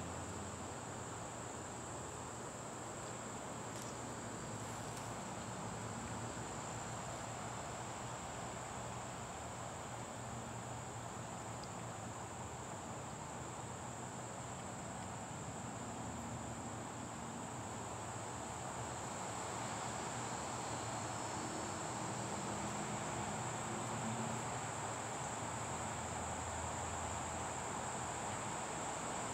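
Crickets singing in one steady, continuous high-pitched trill over a faint background hiss.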